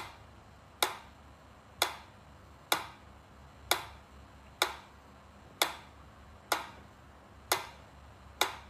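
Mechanical pyramid metronome ticking steadily, about one sharp tick a second.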